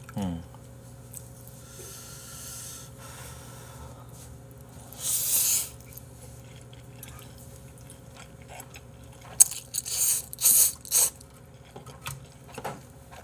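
A person slurping and chewing black bean noodles: one long slurp about five seconds in, then a quick run of loud slurps and smacking around ten seconds in, with wet chewing between.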